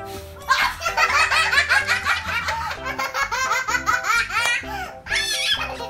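A woman and a small girl laughing hard together in rapid repeated bursts. The laughter breaks off briefly near the end and then starts again.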